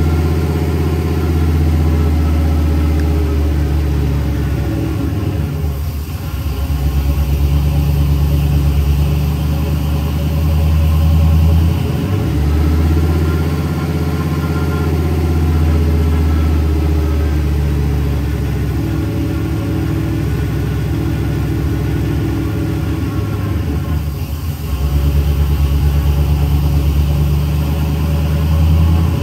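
1973 Ford Bronco engine running on its newly fitted Holley Sniper 2 throttle-body fuel injection at a fast idle, the engine speed shifting and dipping a few times. It is idling higher than expected, around 1,700 rpm instead of 1,200, which the owner suspects is a vacuum leak or wrong timing.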